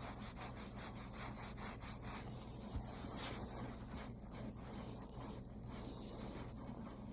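A paintbrush scrubbing and dabbing in repeated short strokes, several a second, working varnish and rice flour into a doll's vinyl skin. A low steady hum runs underneath.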